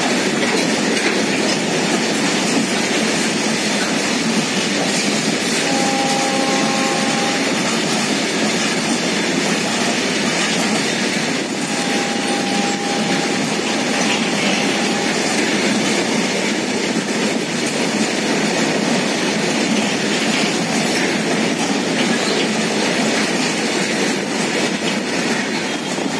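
Loaded open freight wagons of a goods train passing at speed: a steady rumble of wheels with clickety-clack over the rail joints, and twice a brief faint wheel squeal.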